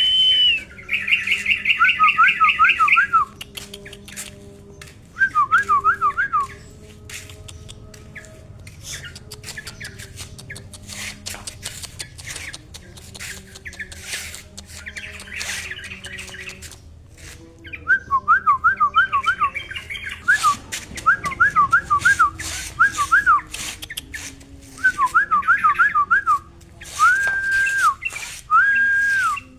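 Yellow-vented bulbul singing in loud bursts of quick, bubbly rising-and-falling whistled notes, opening with a fast rapid trill, then going quiet for about ten seconds in the middle apart from scattered clicks. Near the end it gives three drawn-out level whistles.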